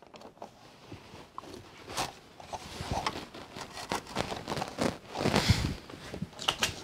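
Plastic toy playset parts being handled and pressed together: scattered clicks and taps, with a longer scraping rub about five seconds in.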